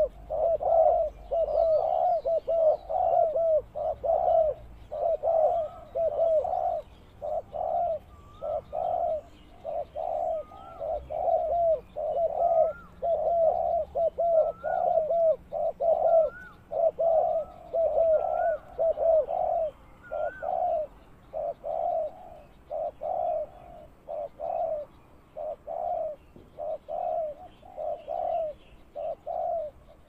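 Spotted doves cooing, phrase after phrase in a steady run with barely a break. A few higher, rising notes sit above the cooing through the middle stretch.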